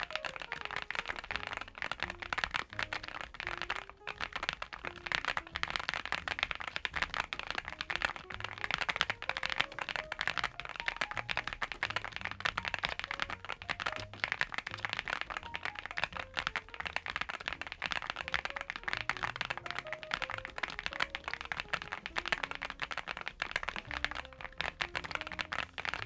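Continuous fast typing on a NuPhy Gem80 mechanical keyboard fitted with an FR4 plate and silicone socket mount: a steady, dense stream of keystroke clacks without a break.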